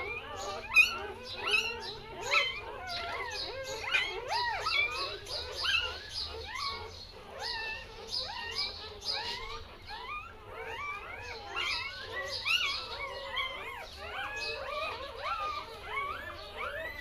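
A litter of eight newborn puppies crying and whimpering: many short, high, rising-and-falling squeaks overlapping without pause.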